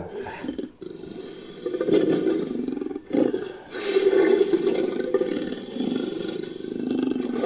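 Made-up monster sound effect: several harsh, drawn-out roars, the last one long.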